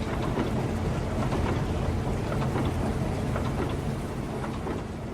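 Steady rain with a low rumble beneath it, dense with small patters, beginning to fade out near the end.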